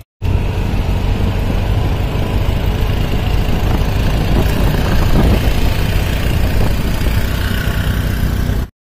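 Auto-rickshaw on the move, heard from inside the open cabin: its small engine running steadily under loud road and wind noise.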